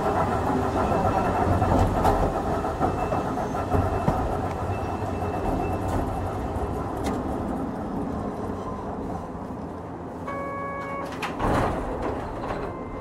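Hankai Tramway 351-class tram Mo 354, an old nose-suspended-motor car, rumbling along on its rails, the running noise gradually dying down. Near the end there is a short electronic beep, then a brief burst of noise.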